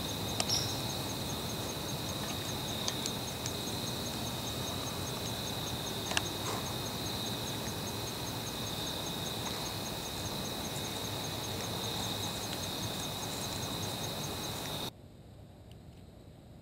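Quiet outdoor ambience: a steady high-pitched drone over an even hiss, with a few faint ticks. The level drops suddenly near the end.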